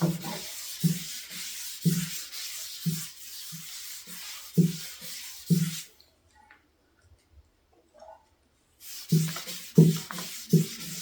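A rag rubbing stain onto a stripped wooden tabletop in repeated strokes, about one a second. It stops for about three seconds past the middle, then resumes with quicker strokes.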